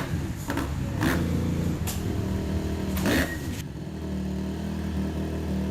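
Honda CRF150L's single-cylinder four-stroke engine idling steadily, with a few short clicks or knocks over it.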